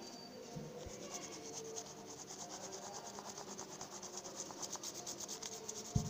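Colour pencil scratching rapidly back and forth over ruled notebook paper laid on a leaf, shading in a leaf rubbing. A single dull thump comes near the end.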